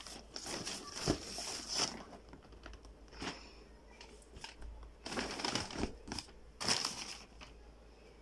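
Brown paper shopping bag crinkling and a cardboard shoebox being handled, in several rustling bursts: one to two seconds in, briefly at about three seconds, and again between five and seven seconds.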